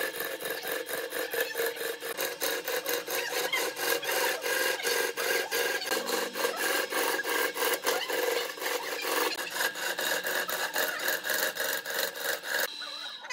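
Wood lathe turning: a hand-held turning tool scraping a spinning wooden vase blank, a rasping sound that pulses about five times a second over a steady hum. The sound changes abruptly near the end.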